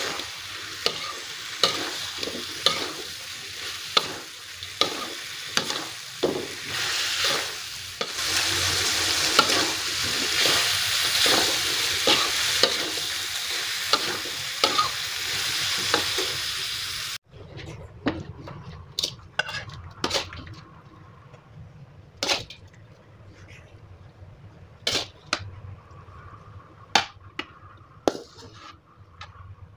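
Chayote and tofu stir-fry sizzling in a non-stick wok while a metal spatula stirs it, scraping and knocking against the pan about once a second; the sizzle grows louder about eight seconds in. It cuts off suddenly about seventeen seconds in, leaving scattered clinks and scrapes of a spoon on a plate as the dish is served.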